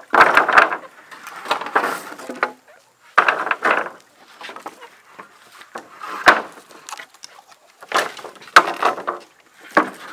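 Rough-sawn wooden planks and slabs clattering and knocking against one another as they are lifted and dropped onto a pile, in about five bursts of clatter with short pauses between.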